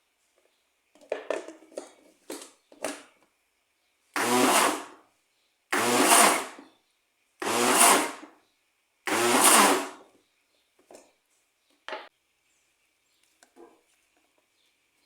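Countertop blender pulsed four times in quick succession, each burst of the motor lasting under a second, to mix baking powder briefly into cake batter. A few short knocks come before the pulses and after them.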